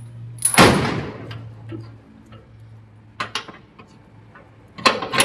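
Metal clanking of a truck tailgate's chains and hooks being unhooked: one loud clank with a short ring about half a second in, a few light clicks around three seconds, and another clank near the end, over a low steady hum.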